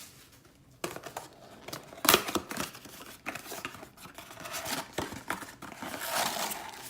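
Packaging of a trading-card blaster box being torn and crinkled open: rustling, with scattered sharp clicks and a louder snap about two seconds in.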